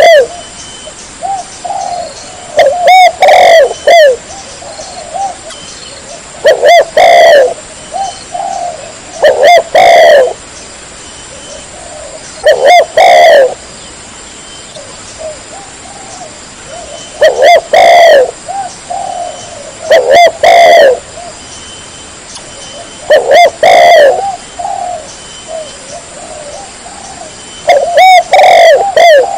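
Spotted dove cooing: about eight short phrases of a few notes each, loud and repeated every three to four seconds, with a longer pause near the middle.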